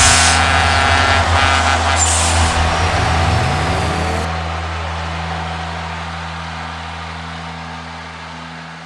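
Truck engine running, heard from inside the cab as a steady low drone, with two short hisses in the first two seconds and a brief rising engine note about three seconds in. The higher sounds then drop away and the drone fades out.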